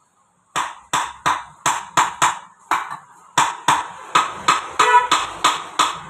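Background music: a run of sharp percussive hits, about three a second, starting about half a second in.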